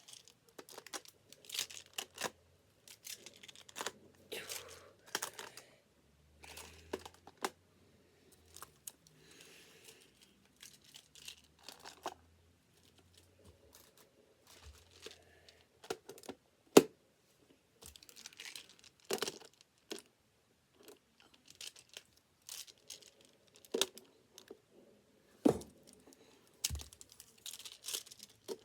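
Plastic magnetic building tiles clicking and clacking as they are handled and snapped together into a tower, in scattered irregular clicks, with one louder clack about seventeen seconds in.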